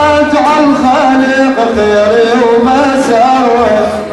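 Male praise singers (maddahin) singing an Iraqi mawlid madih for the Prophet, a drawn-out wavering melodic line with no clear words.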